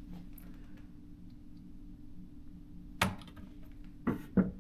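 Parts of a portable typewriter being handled: a single sharp click about three seconds in, then two softer knocks near the end, over a low steady hum.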